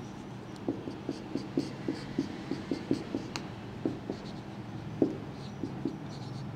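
Marker pen writing on a whiteboard: a quick run of short strokes as Chinese characters are written, thinning out after about four seconds, with one louder stroke about five seconds in.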